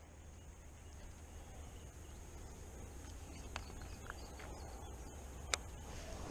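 Quiet outdoor ambience: a faint steady high-pitched hum over a low rumble, with a few soft clicks of fishing tackle being handled, the sharpest about five and a half seconds in.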